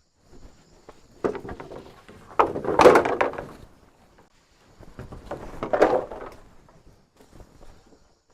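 Two bursts of dry rustling and crackling with knocks, the first starting about a second in and the louder, the second a couple of seconds later: thatching material being handled.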